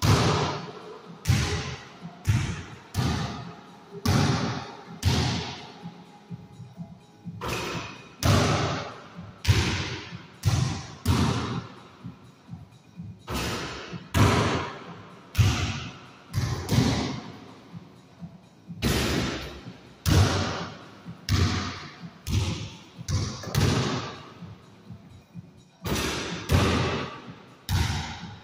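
A basketball bouncing hard on the floor and striking the room's hard surfaces, in an irregular series of loud thuds about one to two a second, some in quick pairs. Each thud rings on with a long echo in the small hard-walled room.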